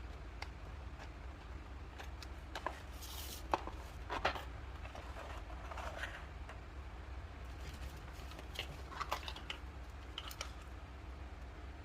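Plastic toy kitchen pieces and their packaging being handled: scattered light clicks and taps with a few brief rustling scrapes, over a steady low hum.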